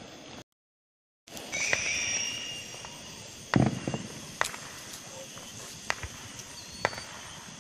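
Consumer fireworks going off: a high whistle, then a loud sharp bang about three and a half seconds in, followed by a few scattered cracks and pops.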